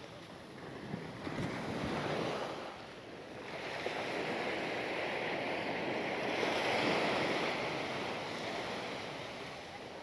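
Sea waves washing up on a sandy beach, swelling twice: a short wash about a second in, then a longer, louder one through the middle and latter part, with wind on the microphone.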